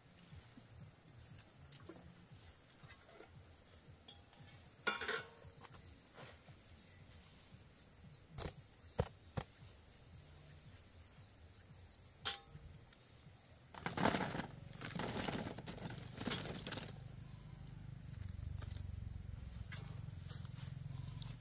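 Steady high insect chirring in the background, broken by a few sharp knocks and then a short run of louder clattering about two-thirds of the way in, followed by a low rumble near the end.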